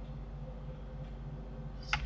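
Steady low hum of the recording setup, with two quick computer keyboard key clicks near the end as Blender shortcuts are typed.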